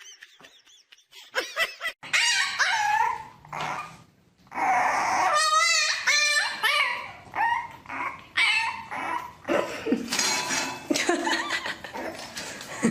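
A dog whining and yipping in a run of high calls that bend and waver in pitch, starting about two seconds in.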